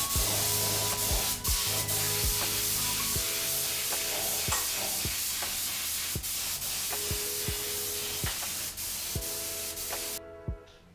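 Compressed-air spray gun hissing steadily as it sprays a coat of finish over carved wooden toy-truck parts, cutting off suddenly near the end. Background music with a regular beat plays underneath.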